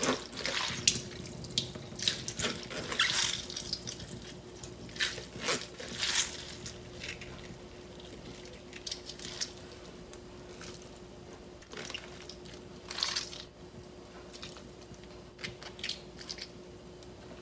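Handfuls of soaked, rehydrated seaweed squeezed out in a plastic colander, the water splashing and dripping into a stainless steel sink in short, irregular bursts, busiest in the first half.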